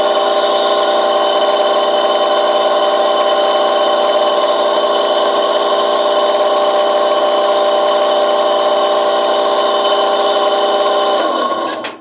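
An Electrolux washing machine's electric drive motor running at spin speed with a loud, steady whine of several tones, then cutting off sharply near the end. The noise is 'unbearable', and the repairer puts it down to a worn motor bearing that needs replacing.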